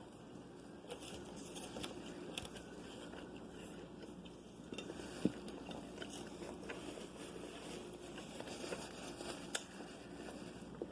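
Eating sounds close to the microphone: chewing and biting into food, with scattered small clicks and one sharper click about five seconds in.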